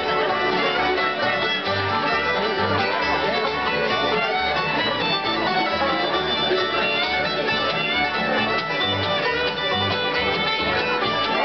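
Live bluegrass band playing a fiddle break: the fiddle leads the melody over strummed acoustic guitar rhythm and upright bass notes on the beat.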